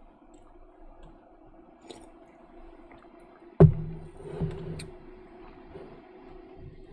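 A single sharp thump about three and a half seconds in, over a faint steady hum.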